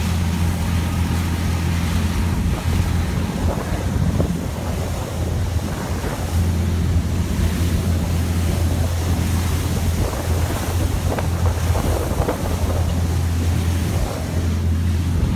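Passenger boat under way: the engine drones steadily, low and even, under wind buffeting the microphone and the rush of water and spray along the hull.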